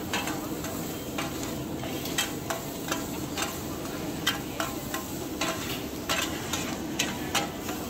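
Two metal ladles clanking and scraping against a wide wok as oyster omelette egg mixture is stirred and chopped, in irregular strikes about twice a second. Steady sizzling of frying runs underneath.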